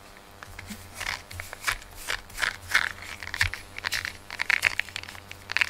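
Quick, irregular scratchy rustling of a rubber cat grooming brush worked through a cat's coat and handled to clear the shed fur.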